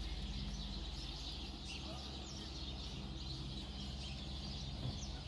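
Scattered faint bird chirps over a steady low hum.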